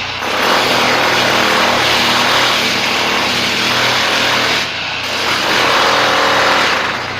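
A motor-driven machine running loud in two long stretches, about four seconds and then about two, with a short dip between.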